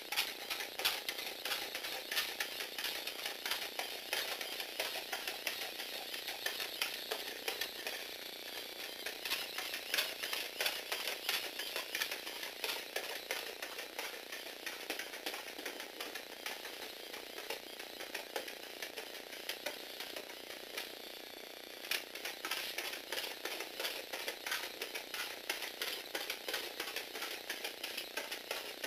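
LEGO Technic walking robot driven by a LEGO Power Functions motor: the motor runs its plastic gears and leg linkages with rapid, continuous clicking and clattering, and the feet tap on a wooden floor. It eases off briefly about twenty seconds in.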